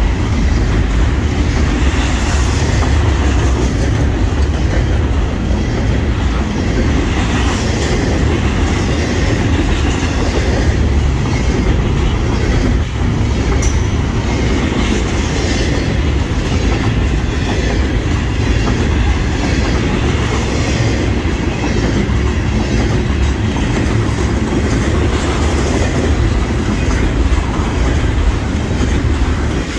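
Double-stack container train's steel wheels rolling past close by: a steady loud rumble with a repeating clickety-clack as the well-car wheels cross rail joints.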